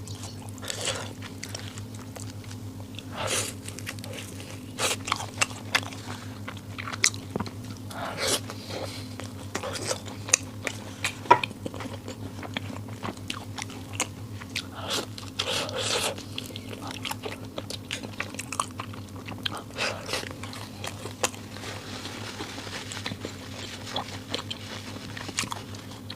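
A person biting and chewing dessert close to the microphone, with irregular bites and mouth sounds throughout. A steady low hum runs underneath.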